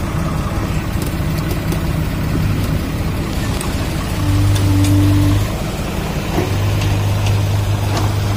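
Heavy diesel engines of a backhoe loader and a tractor running steadily under load. The engine noise swells louder for about a second around four seconds in, then settles back.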